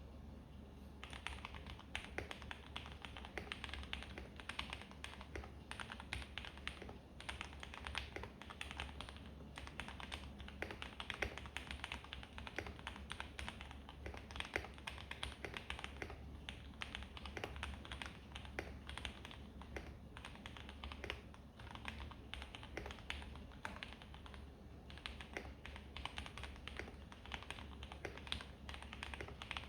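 Continuous typing on a Keychron K2 mechanical keyboard fitted with lubed and filmed Gateron Milky Yellow linear switches, with foam and tape mods, a rapid, uneven run of keystroke clacks. It begins about a second in.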